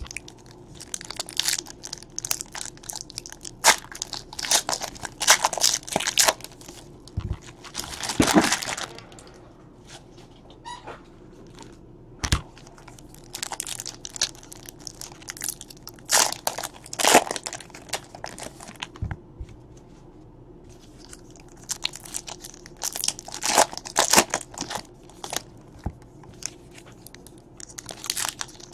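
Foil wrappers of Donruss baseball card packs crinkling and tearing as the packs are peeled open by hand, in clusters of sharp crackles with a couple of quieter pauses. A few soft knocks come in between.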